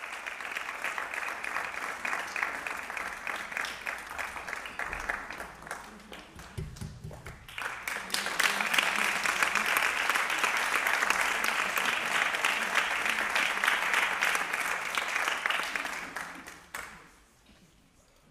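Audience applauding. The clapping thins out about six seconds in, swells again louder a couple of seconds later, and stops abruptly near the end.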